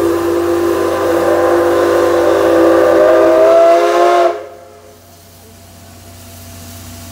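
Steam whistle of the JNR Class C61 steam locomotive C61 20 sounding one long departure blast of several tones at once, about four seconds long, which cuts off sharply. A much quieter steady hiss follows as the locomotive pulls out.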